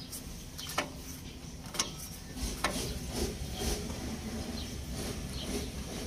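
Red rotary battery isolator switch on a backhoe turned by hand, giving three sharp mechanical clicks about a second apart and fainter clicks after.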